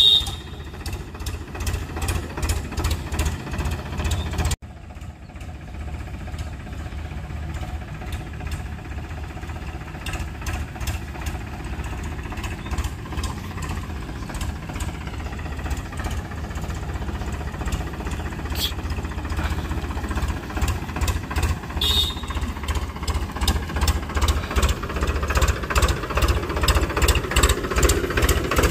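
Diesel tractor engine running, a steady rapid knocking thump. The sound cuts off and restarts about four and a half seconds in, and it grows louder near the end.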